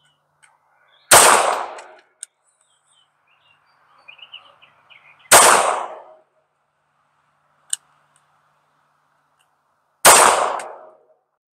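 Three shots from a Hi-Point .380 ACP pistol fired slowly, about four to five seconds apart, each a sharp crack with a short fading ring. A shorter sharp tick follows the first shot and comes again between the second and third.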